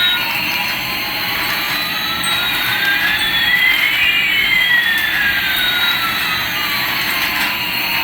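Toy airplane's electronic jet-engine sound effect: a steady hiss with one whine rising and another falling in pitch, the two crossing about halfway through.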